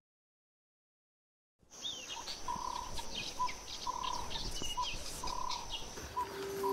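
Silence for about the first second and a half, then birds calling: a whistled note repeated roughly every half second, with higher chirps and quick sweeping calls over a steady high buzz.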